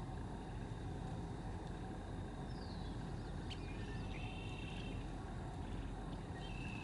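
Steady low rumble of outdoor background noise, with a few thin, high bird chirps and a short falling whistle in the middle and again near the end.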